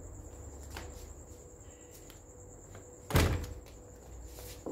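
A single loud thud about three seconds in, over a steady high-pitched cricket trill.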